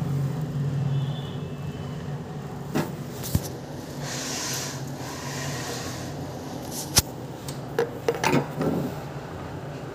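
Scattered clicks and knocks from a VGA monitor cable being handled at the back of a desktop computer, over a steady low hum. There is one sharp click about seven seconds in and a few more knocks soon after.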